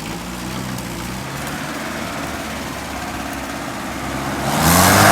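UAZ off-roader's engine idling steadily, then near the end a louder surge with a rising tone and a hiss.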